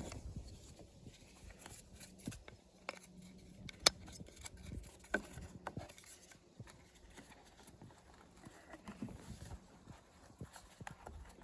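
Scattered light clicks and taps of small parts being handled as the metal piece is moved from the old seatbelt guide to the new one, with one sharper click about four seconds in.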